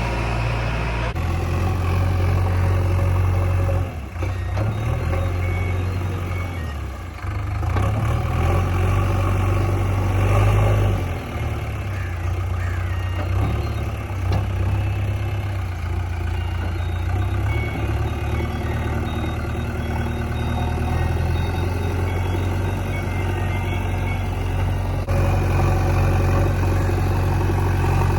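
JCB 3DX backhoe loader's diesel engine running while the backhoe digs, the engine's note dipping and swelling with the changing load.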